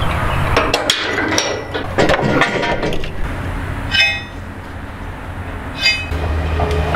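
Steel parts clanking and clinking as a heavy steel plate, nuts and a threaded rod are handled: a clatter of knocks in the first three seconds, then two ringing metal clinks about four and six seconds in.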